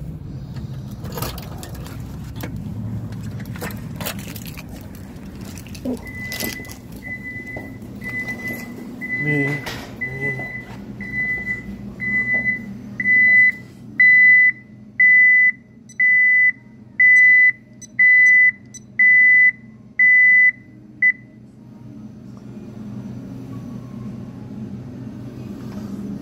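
Security alarm keypad sounding its entry-delay warning after a door is opened: a steady series of about twenty high beeps, a little under a second apart, growing louder, then stopping abruptly about 21 seconds in. Scattered knocks and clicks come before the beeping.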